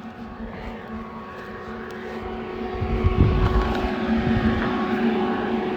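Forced-air shop heater running with a steady whirring hum that gets louder about three seconds in, where a low rumble joins it.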